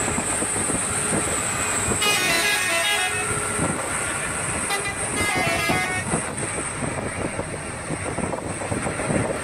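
Toy bus playing a telolet-style musical horn: two bursts of changing multi-note tooting, one about two seconds in and another around five seconds in, over a steady noisy rumble.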